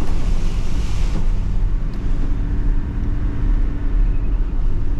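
Diesel 4WD driving along: a steady, loud low rumble of engine and tyres on the road, with a faint steady hum joining about two seconds in.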